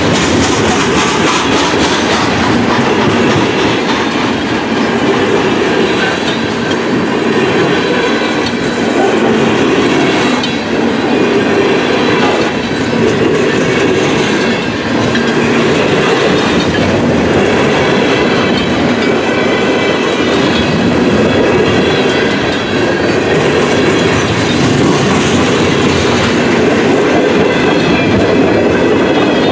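Loaded freight cars of a long freight train rolling past at close range: a steady, loud rumble of wheels on rail with a clickety-clack over the rail joints.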